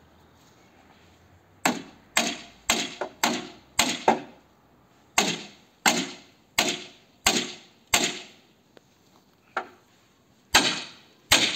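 Hammer blows struck one after another, roughly two a second, starting a couple of seconds in. Each blow has a short ringing tail. A pause of about two seconds comes before a few last, heavier blows near the end.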